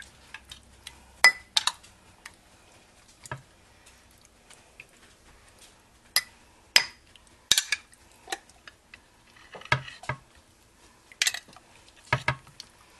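A metal spoon clinking against a glass jar while scooping out marinated artichoke hearts: about a dozen sharp clinks and taps at irregular intervals.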